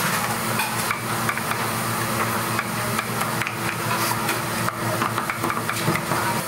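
A cleaver chopping cooked pork on a thick wooden chopping block: irregular sharp knocks. Underneath is a steady kitchen hiss and hum.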